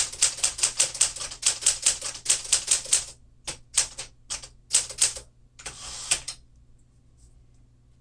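1952 Smith-Corona Clipper manual portable typewriter being typed on: a fast run of sharp key strikes for about three seconds, then sparser strokes and a short rattle, stopping a little past six seconds in.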